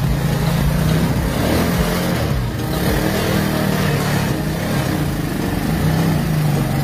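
ATV engine running, its pitch rising and falling a little with the throttle over rough mechanical noise.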